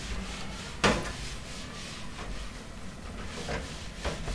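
Screwdriver turning the power supply's mounting screws in a steel computer case: small scraping and clicking of metal on metal, with one sharp click about a second in and a few lighter ones later.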